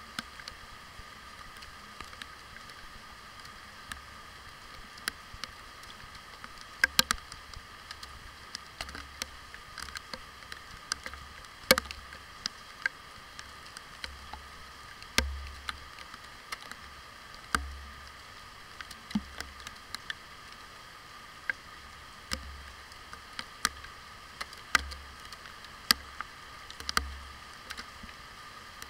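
Raindrops striking the camera's waterproof housing: irregular sharp taps and ticks, some with a dull thud, heard from inside the case, over a steady hiss of rain.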